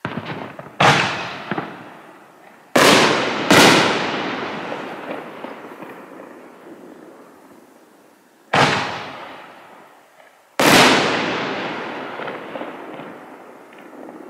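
Six-inch consumer canister shells going off: six sharp bangs, some coming in close pairs, each trailing away in a long echo.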